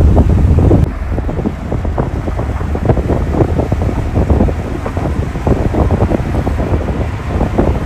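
Car driving at speed on a highway, heard from inside the cabin: a steady low rumble of road and wind noise, with irregular crackling gusts on the microphone. It is louder for the first second, then drops a step.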